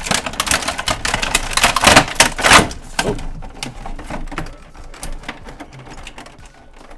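Clear plastic packaging tray crinkling and crackling as an action figure is worked out of it: a dense, loud run of crackles for the first three seconds, then quieter, scattered crinkles.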